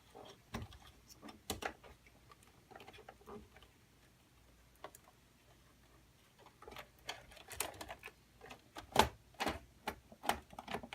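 Irregular clicks and knocks of hands working parts and cables inside a desktop computer case, sparse at first and coming thicker and louder over the last few seconds.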